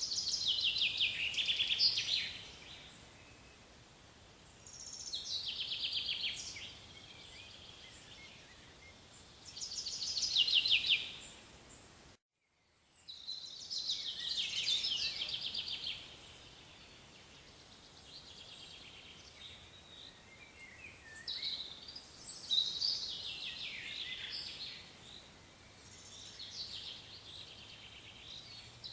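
Songbird singing: repeated phrases of about two seconds, each a fast trill that falls in pitch, recurring every four to five seconds over a faint background hiss. About twelve seconds in, the sound cuts out briefly before the song resumes in more varied phrases.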